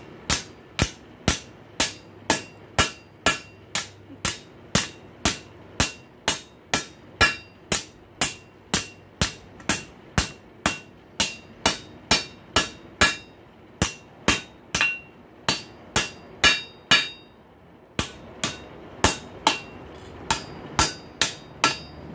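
Blacksmith's hand hammer striking a rail-spike bar on the anvil, bending its end down to about 85 degrees: steady blows about two a second, each with a short ring, with a brief pause about three quarters of the way through.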